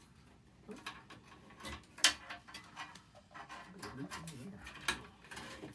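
Clicks, knocks and rustling as a desktop computer's power supply and its cables are pulled free of the case, with one sharp knock about two seconds in the loudest.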